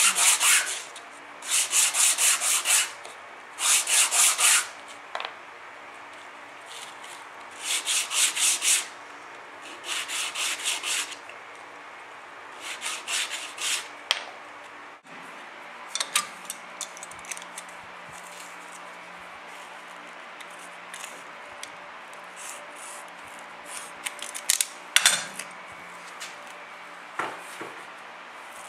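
Small wooden blocks rubbed by hand back and forth on a flat sanding board: six scratchy bursts of rapid strokes, each about a second long with short pauses between. In the second half only a low steady hum remains, with scattered light clicks and one sharper click near the end.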